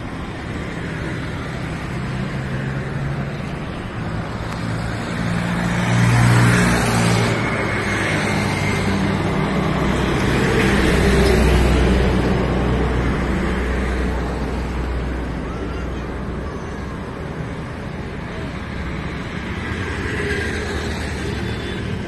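Steady road traffic, with passing vehicles swelling loudest about six seconds in and again around eleven seconds in.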